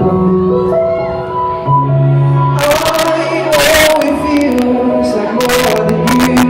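Live pop band music over a concert PA between sung lines: held chords over a moving bass line. From about two and a half seconds in, short bursts of harsh crackle break through, which the uploader puts down to recording too close to the speakers.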